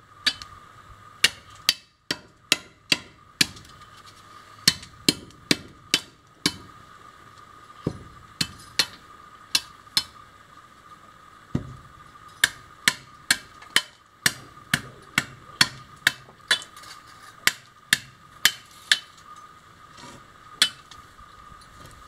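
Machete chopping the branch stubs off a stick of hard wood: a long series of sharp cracking blows, coming in quick runs with short pauses between.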